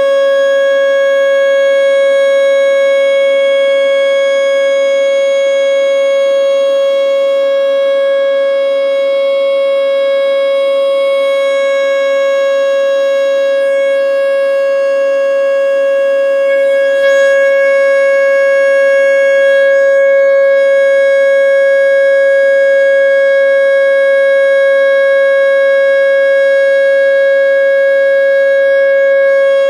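American Signal T121 outdoor warning siren sounding the steady alert signal of a three-minute test: one loud, unwavering pitch with overtones.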